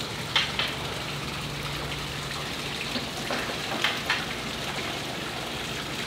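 Water running steadily from hoses into fish holding tanks, with a few short splashes as a dip net goes into the water to scoop bait shiners.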